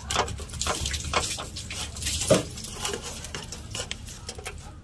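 Small knife cutting through a toasted burger bun and knocking against a steel plate: a run of irregular light clicks, taps and scrapes.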